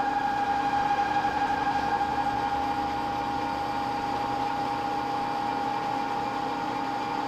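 Metal lathe running, turning a steel bar, with a steady whine over an even machine hum.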